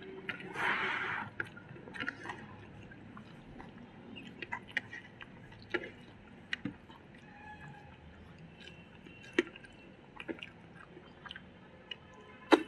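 Eating sounds: chewing and wet mouth clicks, with the soft squish of fingers mixing rice on plates. A short burst of noise comes about a second in, and a sharp click near the end is the loudest sound.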